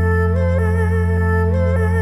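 Background music: a deep held bass note under a slow, stepping melody.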